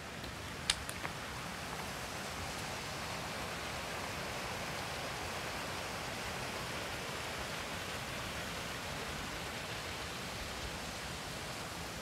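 Steady rushing of a mountain stream, swelling slightly and then easing, with one sharp click a little under a second in.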